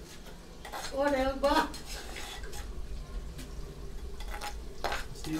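A metal spoon clinking and scraping against a bowl as a mixture is stirred in it, in many short repeated strokes. A person's voice is heard briefly about a second in.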